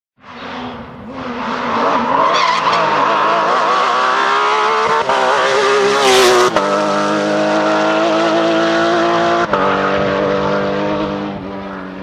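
Porsche 911 GT3 rally car's flat-six engine revving hard as the car approaches and passes close, with a brief rush of noise as it goes by. The pitch drops at two upshifts, about halfway through and again about three quarters through, and the sound fades as the car drives away.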